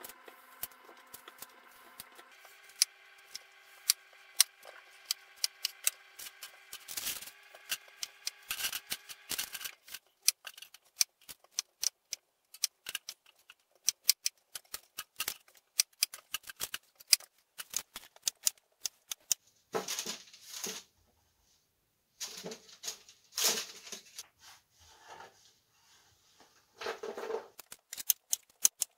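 Cauliflower being snapped apart by hand and cut into florets with a knife on a wooden cutting board: a run of crisp clicks, cracks and knife taps. A few longer, louder rustling noises come in the second half.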